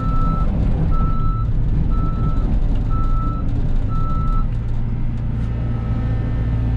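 Cat 313 excavator's diesel engine running under a travel alarm that beeps about once a second while the machine tracks, the beeping stopping about four and a half seconds in as travel ends; the engine runs on.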